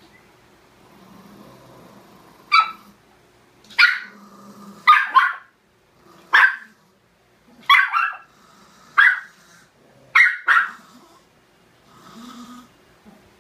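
Small dogs barking sharply, about ten barks in irregular bursts, some in quick pairs, with low growling between them: an angry squabble between the dogs.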